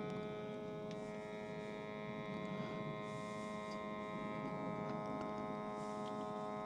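Handheld smoke machine running: a steady electric hum with several whining tones, and brief hisses about three seconds in and near the end.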